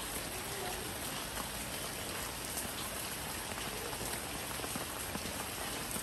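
Steady rain falling, an even hiss with scattered single drops heard as small ticks.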